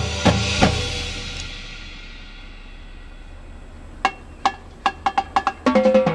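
High school percussion ensemble, drumline and front ensemble, playing: a few heavy drum hits, then a ringing chord that dies away over about a second and a half. After a quiet pause, sharp, spaced clicks start about four seconds in and come closer and closer together, with a held low note joining near the end.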